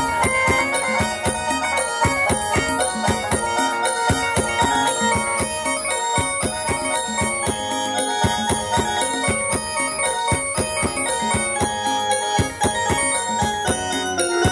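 Instrumental break of a Thai song played loud through the stage sound system: a quick, high melody of short notes over a steady drum beat.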